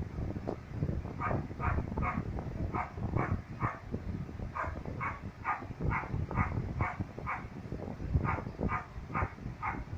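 Dog barking over and over in quick runs, two to three short barks a second with brief pauses between the runs.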